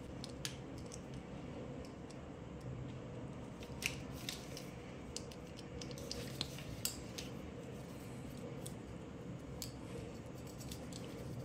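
Small hard-plastic toy parts clicking and tapping now and then as a Kinder Joy dinosaur figure is handled and snapped together, over a faint steady low hum.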